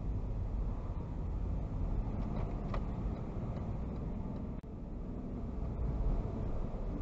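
Steady engine and road rumble of a vehicle driving on a highway, heard from inside its cabin. There is a brief dropout about four and a half seconds in, where the recording cuts.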